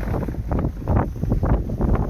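Wind buffeting a phone's microphone: a steady low rumble with irregular gusts.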